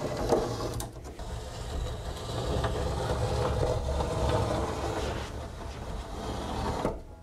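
Steel combination square with a pencil in its notch dragged along the edge of the benchwork, a continuous scraping rub with a low rumble that stops near the end.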